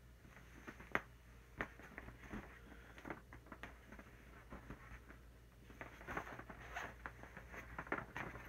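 Inflated blue vinyl alien inflatable being handled and turned over, its skin squeaking and crinkling in a run of short rubs and ticks. A sharp snap comes about a second in, and the rubbing grows busier near the end.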